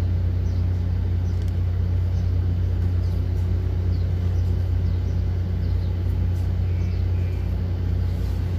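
Engine idling steadily, a low even rumble.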